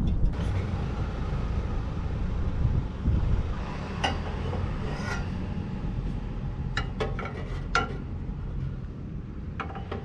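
A few sharp metal clinks and taps from a motorcycle's steel exhaust silencer being handled and fitted into place, over a steady low rumble.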